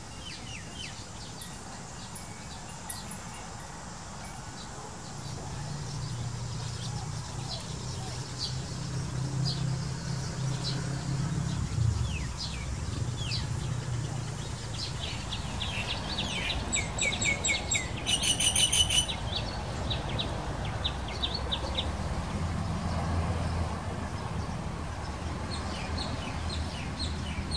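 Birds chirping and calling, with scattered short high chirps and a quick run of falling whistles a little past the middle, over a low steady hum that comes up after the first few seconds.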